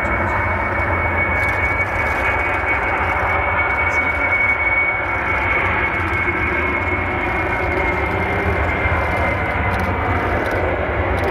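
Boeing 747-400's four jet engines at takeoff power: a loud, steady jet noise with a high whine that sinks slightly in pitch.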